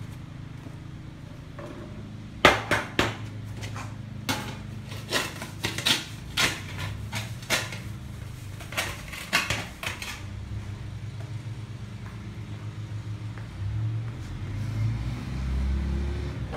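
Metal parts pan being knocked and banged to shake loose debris: an irregular run of about fifteen sharp metallic clanks with a short ring, from about two and a half seconds in until about ten seconds in, over a steady low hum.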